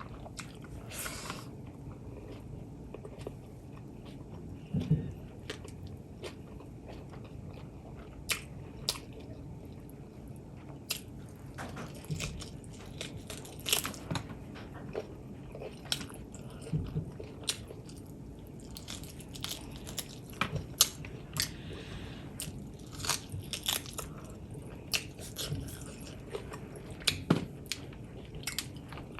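Close-miked eating: mouth noises of biting and chewing, with irregular small crunches, clicks and wet smacks, as pork legs and rice are eaten.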